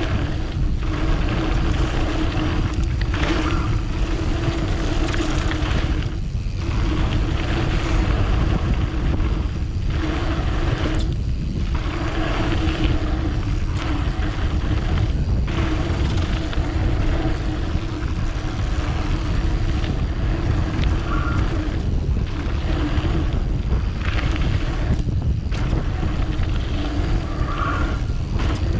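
Mountain bike riding fast down a dirt trail, heard on the action camera's microphone: wind rushing over the mic and tyres rumbling on the dirt. The sound cuts out briefly every few seconds.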